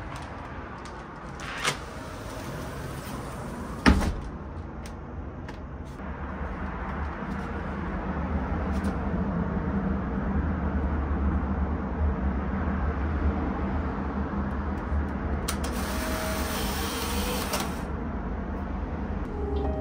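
Polaroid OneStep 600 instant camera in use: a sharp click about four seconds in, and near the end a motorised whir of about two seconds as the print is pushed out. Under it all runs a steady low rumble that slowly grows louder.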